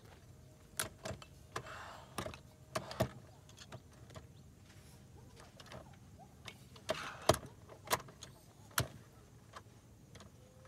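An aluminium rooftop-tent ladder being handled and set in place: a dozen or so sharp metal clicks and knocks at uneven intervals, the loudest about seven seconds in, with brief scraping or rustling between them.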